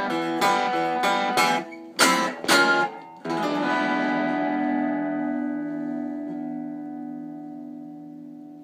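Archtop guitar playing the closing bars of a blues song: a few strummed chords, then a final chord about three seconds in that rings out and slowly fades.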